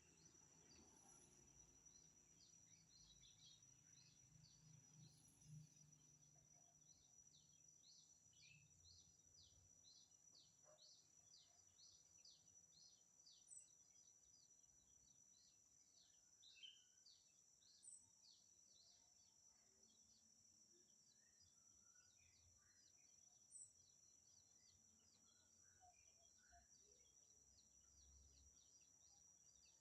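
Faint outdoor ambience: a steady high insect drone with many quick, high bird chirps and occasional short bird calls.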